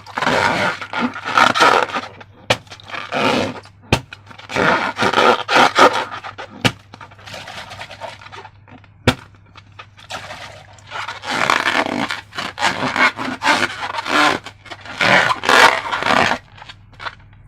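Slime being worked by hand or with a tool: irregular wet squishing and scraping noises, broken by a few sharp sticky clicks.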